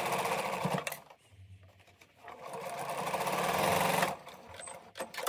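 Electric sewing machine stitching a seam in two runs: it sews until about a second in, stops, then starts again and gathers speed for about two seconds before stopping. A few light clicks follow near the end.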